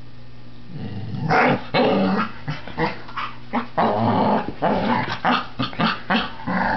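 Dachshund–black Labrador mix puppy growling in play, a run of short rough growls starting about a second in.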